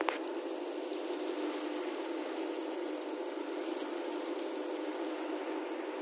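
Steady rushing of water with a faint steady hum, the sound of a fishing boat running at sea, with a short click at the very start.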